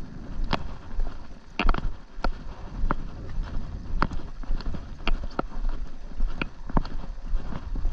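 Footsteps on gritty concrete: sharp, uneven scuffing steps about twice a second, over a steady low rumble.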